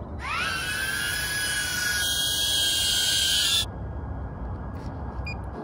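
DJI Avata FPV drone's propellers spinning up for takeoff: a high whine that rises in pitch over about half a second, then holds steady before cutting off suddenly about three and a half seconds in.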